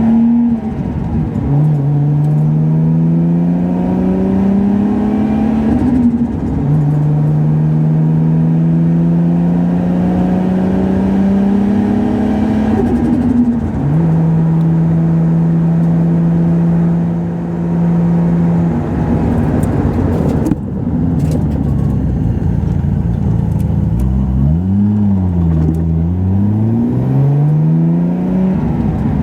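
Stroked Nissan RB26 inline-six with a big single turbo pulling under light acceleration, heard from inside the car. The engine note climbs and drops at each upshift about three times, holds steady for a few seconds, then falls off. Later the revs dip and rise again.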